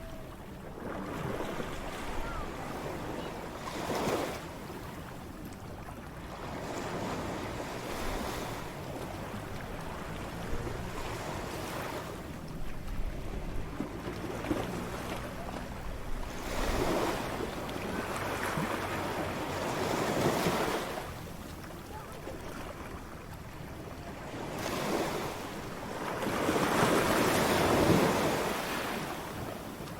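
Ocean waves breaking on a shore in repeated surges every few seconds, with a steady wash between them; the largest wave breaks near the end. Some wind noise on the microphone.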